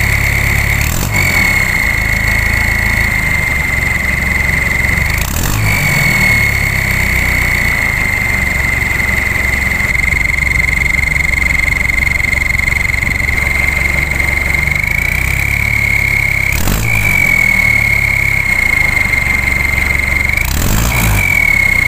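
Diesel engine of an owner-type jeep running, with a turbo whistle fitted in the exhaust tailpipe giving a steady high-pitched whistle over the engine rumble. The whistle is broken four times by short rushing bursts, each time settling back to the same pitch.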